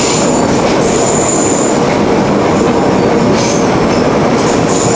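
Hershey electric train passenger car running along the track, heard from inside the carriage: a loud, steady rattle and rumble of the car and its wheels. A thin, high wheel squeal comes and goes, held longest for about a second near the start.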